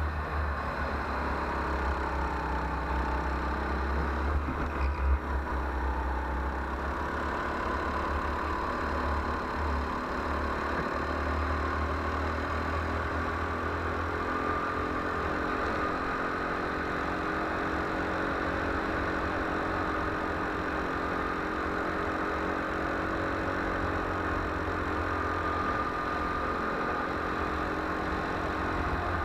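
Go-kart engine running continuously, heard from on board, its pitch rising and falling gently as the kart speeds up and slows for corners, over a steady low rumble.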